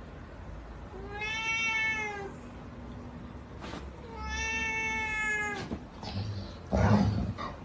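A cat gives two long, drawn-out meows, each rising and then falling in pitch, about three seconds apart. Near the end comes a short, loud, harsh noisy burst.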